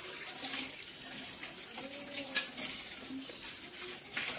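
Boiled water being poured from a vessel into a pressure cooker onto soaked, drained rice, a steady stream of splashing water.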